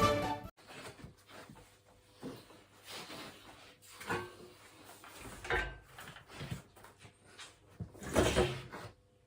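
Music cuts off, then faint, irregular knocks and clatter with a louder cluster near the end.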